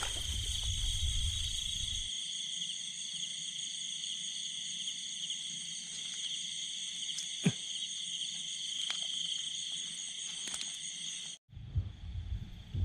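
Steady night chorus of crickets and other insects, several high trills layered over one another, with a single sharp click about seven and a half seconds in. A low rumble is heard for the first two seconds and returns after the sound cuts out for an instant near the end.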